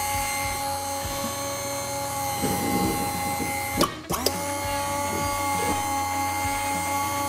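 Hydraulic pump of a SuperATV Ride System rear-steering kit running with a steady whine, worked by its remote to move fluid and bleed air out of freshly filled lines. It cuts out about four seconds in and starts again a moment later.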